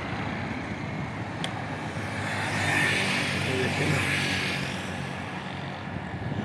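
A car's engine and road noise while driving along a street, with a steady low hum under a hiss that swells for a couple of seconds in the middle. There is a single short click about a second and a half in.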